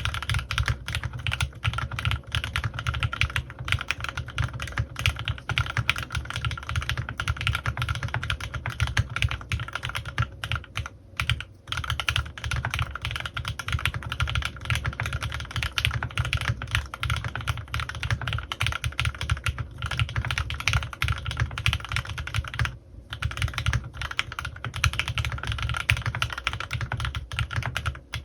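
Continuous fast typing on a CannonKeys Rekt1800 custom mechanical keyboard with lubed Gateron Milky Yellow linear switches and PBT keycaps, a dense run of key clacks. There are brief pauses about 11 seconds in and again about 23 seconds in.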